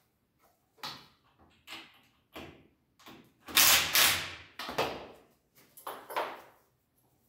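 Handling sounds from assembling a wooden door frame: a series of short scrapes and knocks about once a second. The loudest and longest burst comes about three and a half seconds in, as a cordless drill-driver is worked at the frame's corner joint.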